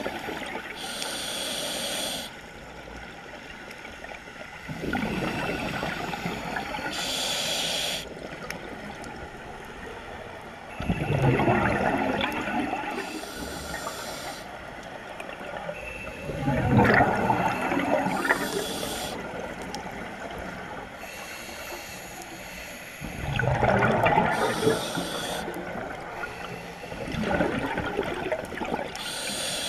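Scuba diver breathing through a regulator underwater: a short hissing inhale, then a louder rush of bubbling exhaust on the exhale, repeating about every six seconds.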